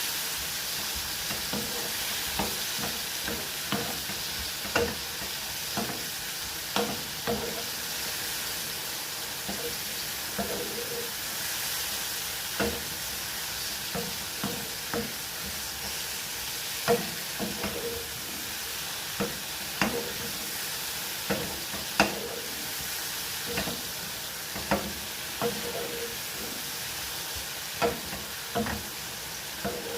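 Food sizzling in oil in a frying pan while it is stirred, with a utensil knocking and scraping against the pan now and then.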